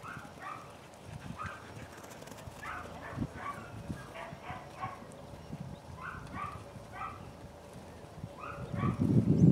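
Sheep and a sheepdog pup running on grass: soft thuds of hooves and paws, with short sharp calls, often in pairs, every second or so. A louder low rush swells near the end.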